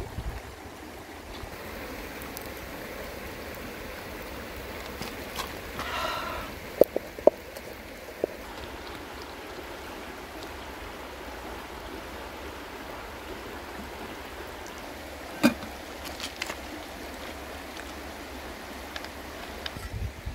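Shallow river running steadily over stones, with a few sharp knocks and clinks about a third of the way in and again past the middle.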